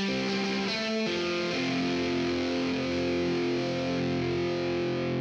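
Background music: a distorted electric guitar holding sustained chords, the chord changing about a second in.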